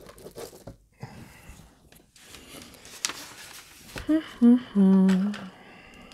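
Paper sheets rustling and sliding with a couple of light clicks, then a woman humming three short notes that step down in pitch, the last one held for about a second.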